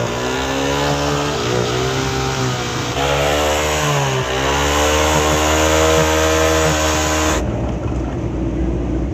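Single-cylinder engine of a 70cc motorcycle running, its pitch wavering up and down. The sound changes abruptly about three seconds in and again near the end, where the hiss above it drops away.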